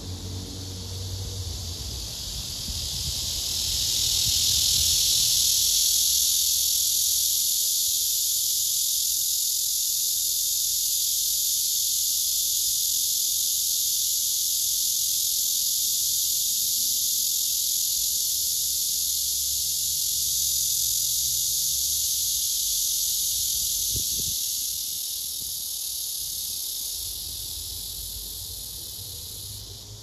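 Male blackish cicada (Cryptotympana atrata) singing its courtship song: one long, loud, steady high buzz. It swells in over the first few seconds and fades away near the end.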